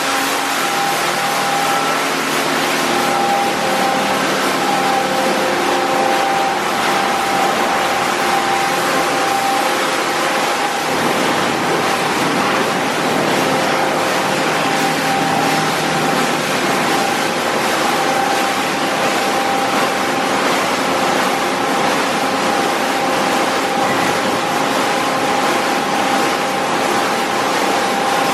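Automatic car wash tunnel running: cloth wraparound brushes spinning and slapping against a foam-covered car amid water spray, with a steady machine whine over the wash noise.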